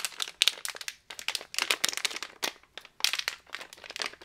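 Foil blind-box wrapper crinkling and crackling as it is handled and pulled at, in quick irregular crackles with a couple of short pauses.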